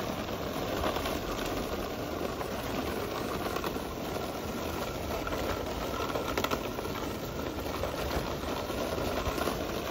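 Small hard wheels of a child's ride-on toy rolling over a paved path, a steady, even rolling noise.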